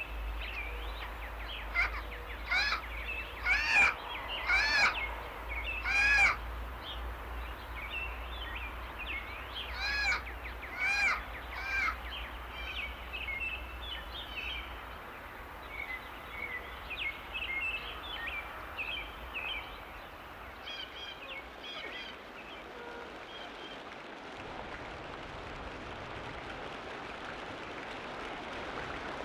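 Tropical rainforest ambience: a bird gives a run of loud arched calls, each rising and falling, about one a second through the first dozen seconds, then softer short chirps from other birds follow over a steady background hiss.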